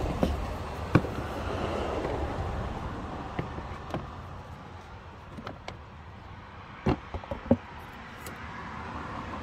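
Sharp plastic clicks and knocks as the black plastic cabin-filter cover on a Mercedes SL500's cowl is lifted off and handled: one strong knock about a second in and a quick cluster of clicks around seven seconds in. Steady road-traffic noise runs underneath.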